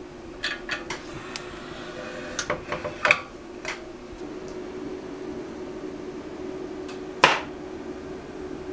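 Wood-burning kitchen stove: a run of sharp clicks and knocks as the fire crackles and the metal firebox door is shut about three seconds in, then one louder knock near the end, over a steady low hum.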